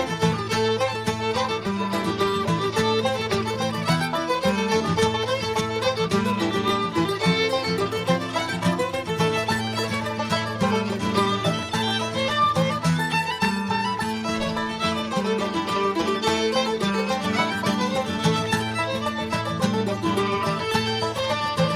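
Bluegrass string band playing: fiddle leading over guitar, banjo and mandolin, at a steady lively tempo.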